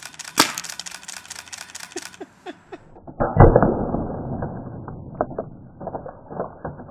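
Paintball gun firing at a raw egg: a sharp crack, then a run of quick clicks. About three seconds in comes a louder, duller bang with a long rushing tail as the egg is hit and bursts apart.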